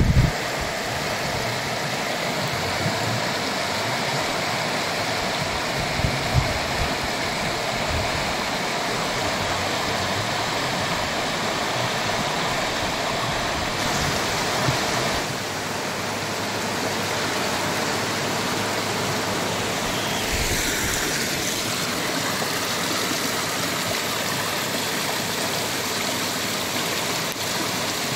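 Water of a stream rushing over rocks: a steady, even hiss.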